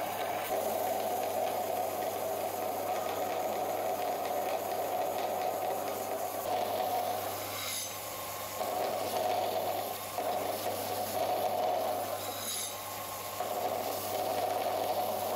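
Belt grinder running with the rusty steel head of a pickaxe pressed against its abrasive belt, grinding off rust and scale, over a steady motor hum. The grinding drops away briefly three times as the head is eased off and repositioned on the belt.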